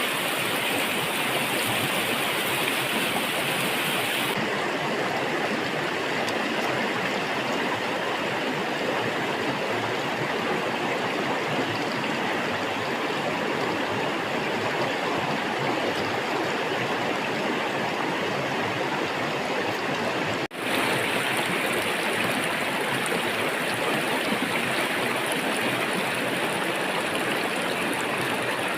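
Steady rushing of flowing water, like a stream. The hiss thins about four seconds in, drops out for a moment about twenty seconds in, then comes back brighter.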